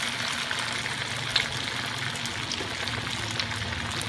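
Hot oil in a wok sizzling steadily as spoonfuls of ground pork and tofu mixture deep-fry, with a few sharp crackles, the clearest about a second and a half in.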